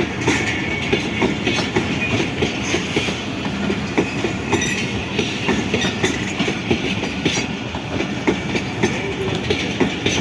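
Passenger train coaches rolling past at close range: a steady rumble with quick, irregular clicks and knocks of wheels over rail joints and points.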